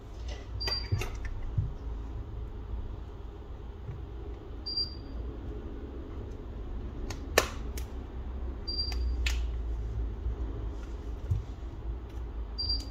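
Small sharp clicks and taps of hand tools working on a smartphone being opened for repair, the loudest a single crisp click about halfway through. Under them is a low steady hum, and a short high chirp comes about every four seconds.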